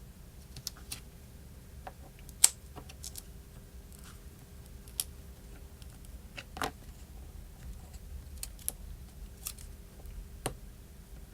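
Irregular light clicks and taps of small repair tools working on the insides of an opened iPhone 4S, one sharper click about two and a half seconds in, over a steady low hum.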